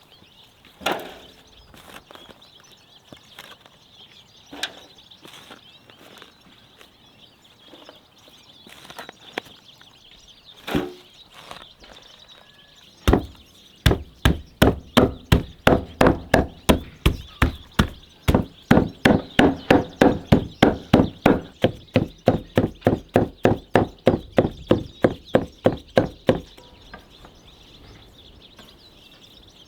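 Knife chopping on a wooden cutting board: a few separate strokes at first, then, from about halfway in, a fast, steady run of about three to four chops a second that stops a few seconds before the end.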